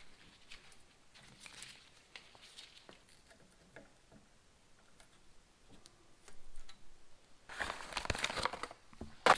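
Crinkling and rustling of material being handled, with faint scattered clicks at first and a louder, denser rustle starting about seven and a half seconds in.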